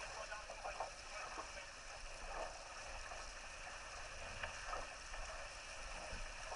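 Water rushing and splashing along the hull of a Laser 4000 sailing dinghy as it sails heeled over, a steady churning wash.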